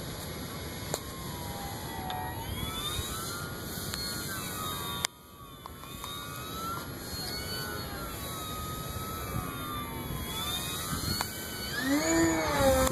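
Electric RC airplane's AXI 2826/10 brushless outrunner motor and propeller whining overhead, the pitch sliding up and down as the plane passes and the throttle changes, and growing louder near the end. Wind noise on the microphone underneath.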